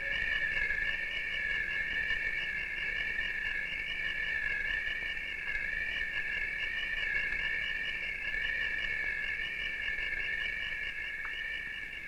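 Steady chorus of rainforest insects: several high-pitched tones held together without a break, wavering slightly.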